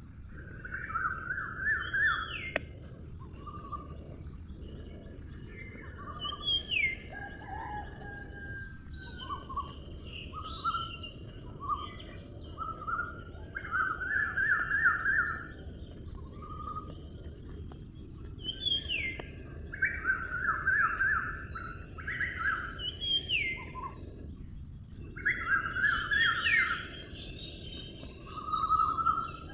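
Birds singing: repeated phrases of quick chirps, several ending in a rising whistled note, coming back every few seconds. Under them runs a steady high-pitched hiss.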